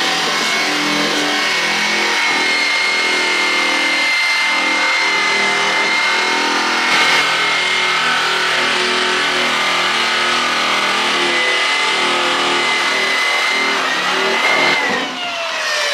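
A handheld drum-type power polisher runs steadily with a high motor whine as it is worked over a bare aluminum boat hull, smoothing out wire-brush swirl marks to prepare the metal for paint. Near the end it is switched off and the whine falls in pitch as it spins down.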